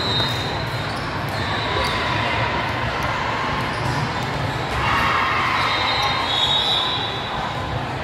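Volleyball gym sounds: sneakers squeaking on the hardwood court several times, the longest squeak about six seconds in, with ball hits echoing in a large hall.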